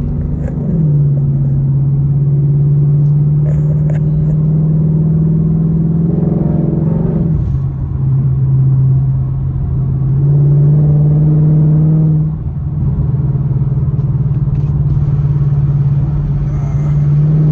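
Ford Mustang GT's V8 exhaust heard from inside the cabin while driving: a steady deep note that swells under throttle and drops sharply about a second in, around seven seconds, and again around twelve seconds.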